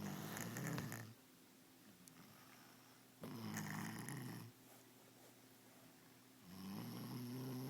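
A child's noisy, snore-like breathing: three drawn-out breaths about three seconds apart, each with a low rough voiced tone.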